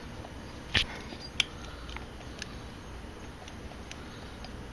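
Allen wrench clicking against a bolt as it is snugged down by hand on a chrome air-cleaner backing plate: two sharp clicks about a second in, then a few faint ticks.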